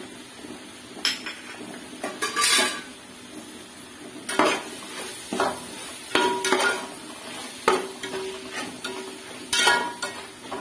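Metal spoon stirring and scraping through a masala of onions, tomatoes, coriander and mint in an aluminium pot, with irregular clinks against the pot wall that leave it briefly ringing, over a light frying sizzle.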